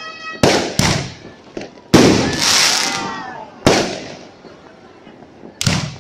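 Aerial fireworks going off in a string of sharp bangs. The loudest comes about two seconds in and is followed by about a second of crackling hiss as the shell's sparks spread. Two more bangs go off in quick succession near the end.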